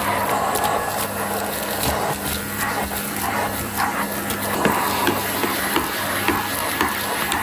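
Goodmans TurboMax vacuum cleaner running steadily, its motor humming under a rush of airflow, with scattered sharp clicks and rattles throughout.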